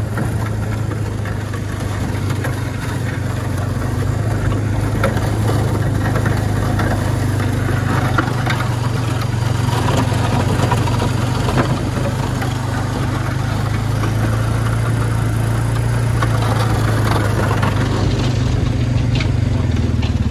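ATV engine running steadily under load as it pushes an angled Kolpin Switchblade snow plow, with the blade scraping through snow on the road surface.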